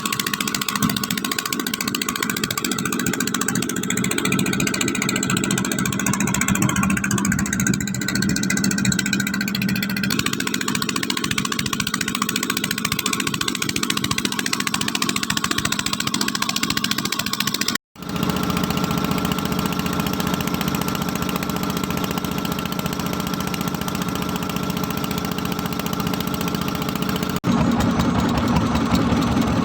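A motor engine running steadily, with a brief dropout about 18 seconds in and a sudden shift to a louder, higher hum near the end.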